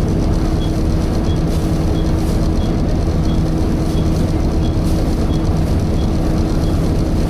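Volvo B7TL double-decker bus heard from inside: the diesel engine and the hoover-like radiator cooling fan running with a steady rumble and hum. A faint high tick repeats about every two-thirds of a second.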